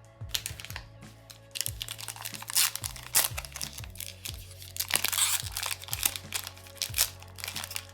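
Foil trading-card pack wrapper crinkling and tearing as it is opened, in irregular bursts starting about a second and a half in. Background music with a steady bass line plays underneath.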